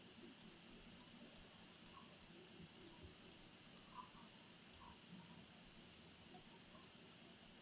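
Near silence: room tone with faint, irregularly spaced computer mouse clicks.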